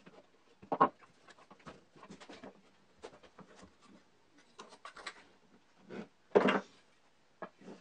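Scattered knocks, scrapes and rubs of wood and metal as an electric motor is levered over with a wooden board to tighten a slipping V-belt. Louder knocks come about a second in and again near six and a half seconds.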